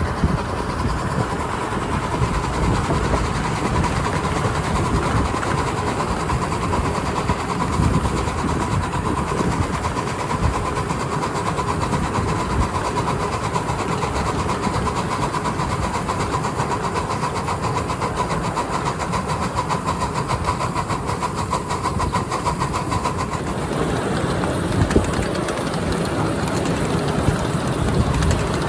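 Ride-on live steam train in motion, heard from a car just behind its diesel-fired 4-6-2 Pacific locomotive in Daylight livery: a steady rumble of wheels on the rails with fine rapid clicking. A steady whine runs alongside it and fades out about 23 seconds in.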